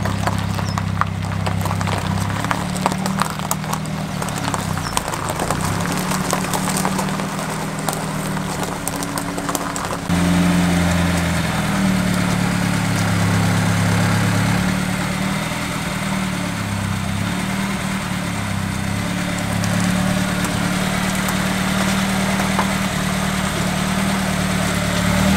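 Small old four-cylinder car engine of a vintage upright Ford saloon idling and running at low speed while the car is eased into a parking spot. About ten seconds in it becomes louder.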